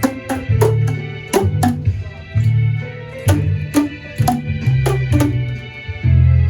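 Music with a steady drum beat: deep bass pulses with sharp drum strikes and sustained pitched notes above.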